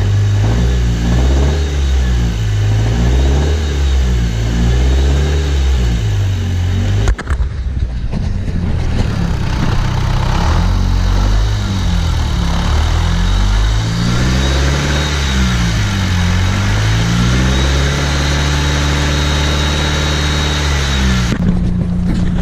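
Dodge Caliber SRT-4's turbocharged 2.4-litre four-cylinder, freshly assembled and warming up, being blipped up and down over and over, then settling back to a steady idle near the end. The owner is listening for a knock that he fears may be a rod knock.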